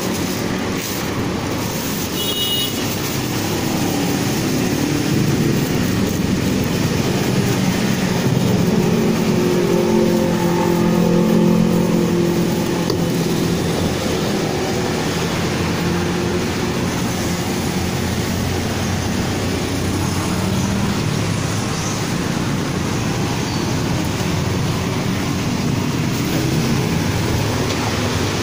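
Steady vehicle and traffic noise. An engine grows louder for a few seconds near the middle, then fades back into the background.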